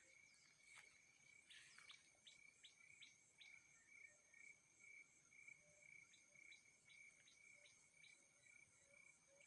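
Faint outdoor ambience: insects chirping in a steady pulsing trill, with runs of short, quick bird-like chirps.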